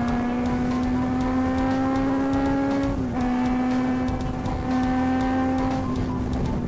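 Motorcycle engine running under way, its note rising slowly, then dipping sharply about three seconds in as at an upshift, holding steady, and easing off near the end.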